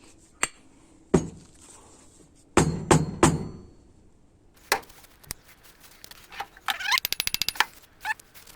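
Transmission input drum and shaft parts being fitted together by hand: scattered metal knocks and clunks, the loudest a cluster of three about two and a half seconds in. A rapid run of clicks follows near the end.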